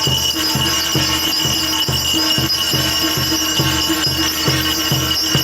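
Korean shamanic ritual music: a drum beating a fast, steady rhythm, about three to four strokes a second, under jingling bells and a steady ringing metallic tone.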